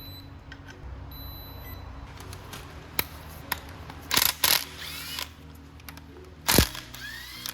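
Background music with a steady low bed, overlaid by a handful of sharp clicks and clinks, the loudest near the end.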